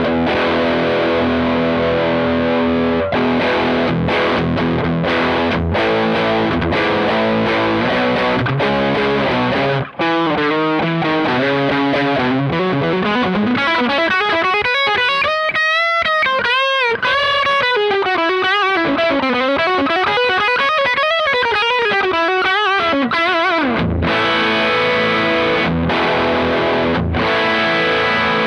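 Electric guitar through a Fender Hot Rod Deluxe IV tube combo amp on its overdrive channel, played with distortion. It starts with held chords, moves to a single-note lead line with string bends and vibrato around the middle, and ends with chords again.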